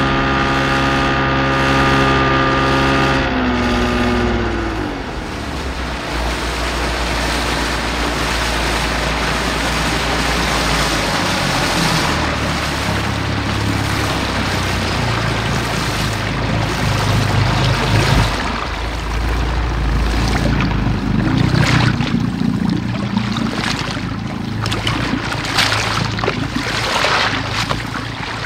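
16-foot motorboat's 40 hp engine pulling up to a stop: it runs steadily, then is throttled back about three and a half seconds in, its pitch falling away. Water then washes and sloshes against the hull, with uneven splashes and slaps as the boat settles.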